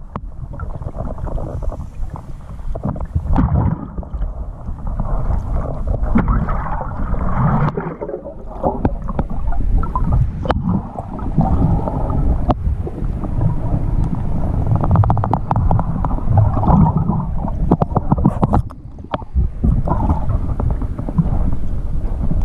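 Muffled rush and gurgle of water moving around an underwater action camera as a snorkeler swims, surging in level, with scattered sharp clicks.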